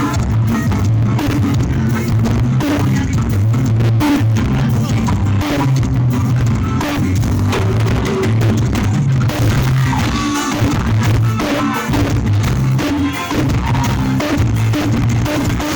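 Live band playing forró through a PA system at a sound check, with drum kit, bass line and guitar.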